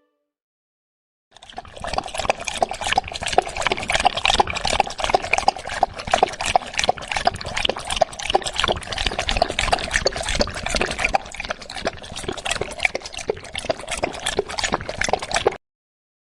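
A dog lapping water: rapid wet laps that start about a second in, run on without pause and cut off suddenly near the end.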